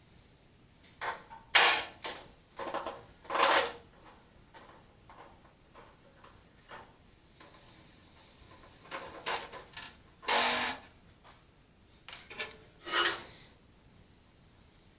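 Furnace blower parts being handled and worked on by hand: a series of short scrapes, rubs and knocks in two clusters, one in the first few seconds and another past the middle.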